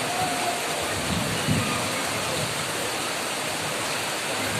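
Steady heavy rain, an even hiss of falling water with a few faint low thuds about a second in.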